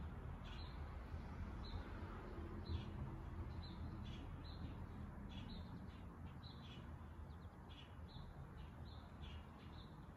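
Faint bird chirping: short high notes repeating irregularly, two or three a second, over a low steady rumble of room noise.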